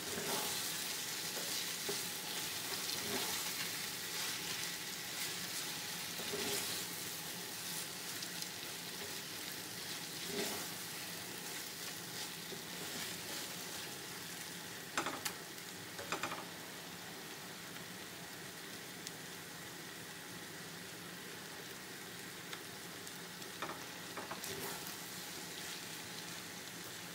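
Crumbled urad dal fritter and cotton milk plant leaves sizzling as they are stir-fried in a stainless steel pan, with a wooden spatula scraping the pan. The spatula knocks against the pan now and then, twice more sharply about halfway through.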